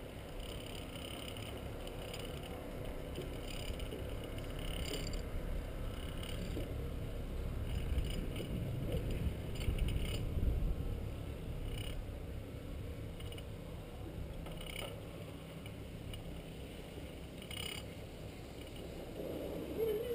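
Low rumble of a chairlift ride heard from the chair, louder around the middle, with a few faint clicks.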